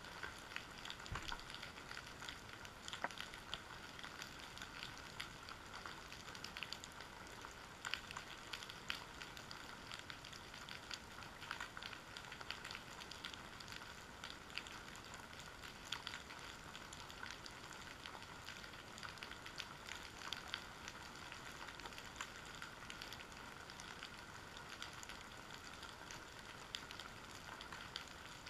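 Underwater ambience recorded by a camera on a kelp-covered seabed: a steady, faint hiss with constant irregular crackling and clicking.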